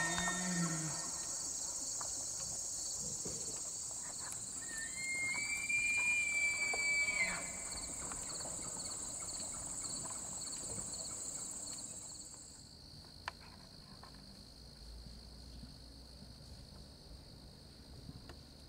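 Steady high chorus of crickets and other insects, quieter after about twelve seconds. A bull elk bugles: the tail of one call at the very start, then a long, high, held whistle about five seconds in.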